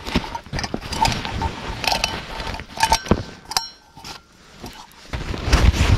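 Gear being rummaged out of a backpack: fabric rustling, clicks and knocks, and a steel mug clinking with short metallic rings in the first half, then louder rustling and handling near the end.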